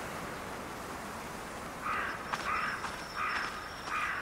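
A crow caws four times in quick succession from about halfway in, over a steady hiss of wind-like background noise.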